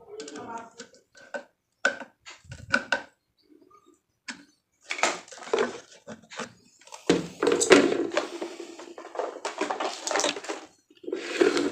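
Clicks, knocks and rustling from plastic stand-fan parts and packaging being handled: a run of sharp clicks at first, then about halfway through a longer stretch of scraping and rustling.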